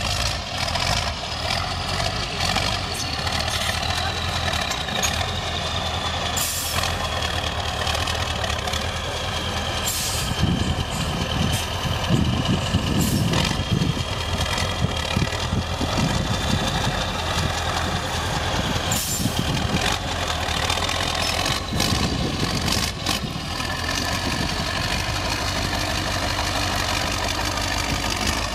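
Eight-wheel-drive trial truck's diesel engine working under load as it crawls over a steep dirt mound, revving harder around the middle, with a steady high whine that dips and rises in pitch. A few short, sharp hisses of air cut in.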